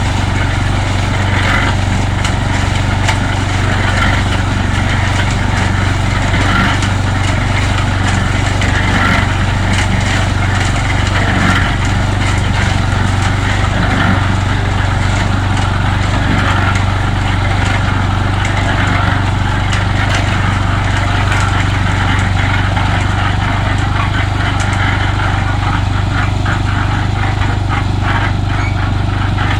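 Small engine running steadily at a constant speed, with a run of light knocks near the end.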